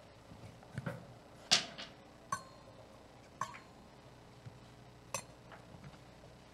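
Chalice, paten and other altar vessels clinking and being set down on the altar, about five separate knocks with the loudest about a second and a half in; two of the knocks ring briefly like struck metal or glass.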